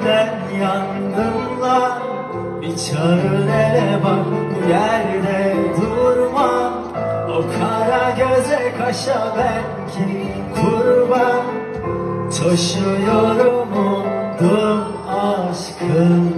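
Male vocalist singing a Turkish pop song live into a microphone over band accompaniment, heard through a concert PA.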